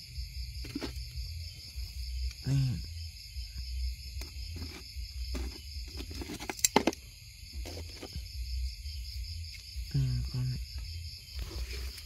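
Steady high chorus of crickets singing at night, over a low rumble of handling noise on the microphone. A few light clicks and rustles are heard, and two short voice sounds come about three seconds in and near the ten-second mark.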